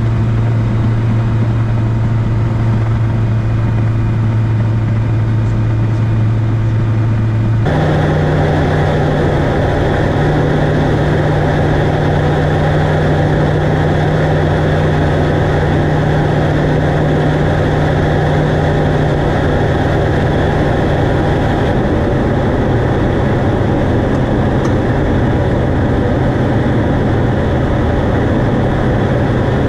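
Light aircraft's Rotax four-cylinder engine and propeller running steadily. A low drone at low power on the ground changes abruptly about eight seconds in to a louder, higher note with more rush of air, at flight power. About two-thirds of the way through the note drops a step as power is pulled back for the descent to the runway.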